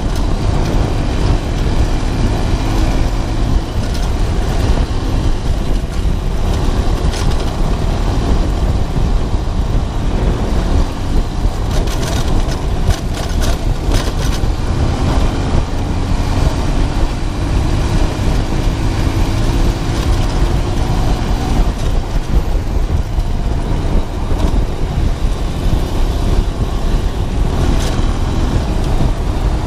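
Romet ADV 150 motorcycle under way on a gravel track: its single-cylinder engine running at a steady cruise, the note slowly rising and falling, under loud wind and road rush. A cluster of sharp knocks comes midway.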